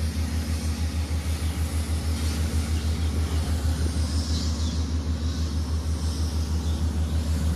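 Water-well drilling rig's engine running steadily: a low rumble that pulses evenly.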